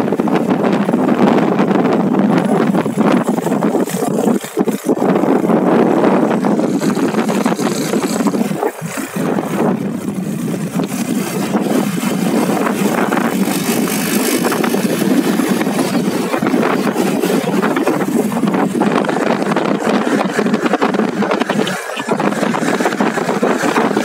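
Small motorcycle engine running steadily while riding along a road, with wind rushing over the microphone and tyre noise. The sound dips briefly a few times.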